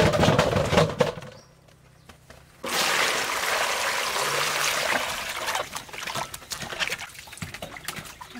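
Water splashing, then after a short pause water pouring, starting suddenly about two and a half seconds in and tapering off into small splashes and clicks.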